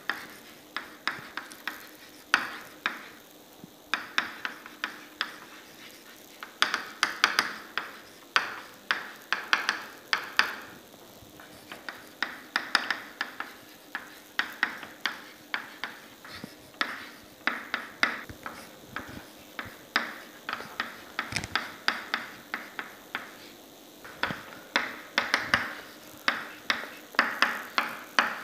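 Chalk tapping and scratching on a chalkboard during handwriting: quick clusters of sharp clicks with short pauses between them.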